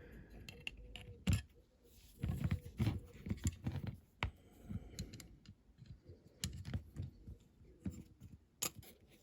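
Irregular small clicks, taps and soft knocks of small diecast model parts being handled and fitted together by hand on a workbench.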